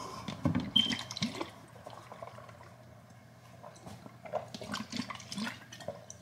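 A person drinking from a plastic shaker bottle: liquid sloshing and gulping, loudest in the first second and a half, with more small swallowing and mouth sounds later on.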